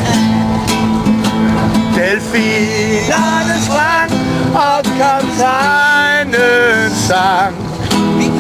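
Acoustic guitar strummed, with a man singing over it from about two seconds in.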